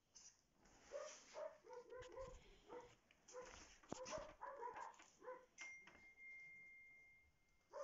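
A dog whimpering and yipping in a run of short, pitched calls, then one high, steady whine about two seconds long that slowly fades.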